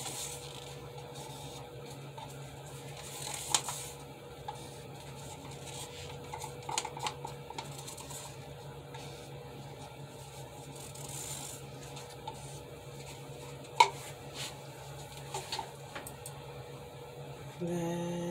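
Plastic paint cups and a wooden stirring stick being handled while acrylic pour paint is layered. There are light scrapes and small clicks, with a sharp tap about three seconds in and another louder one near fourteen seconds, over a steady low hum. Near the end there is a short hummed note from a voice.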